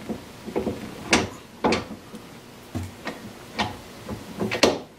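Cast-iron wood lathe tailstock being slid along and worked off the end of the lathe bed: a string of sharp metal clunks and knocks, about seven, with two close together near the end.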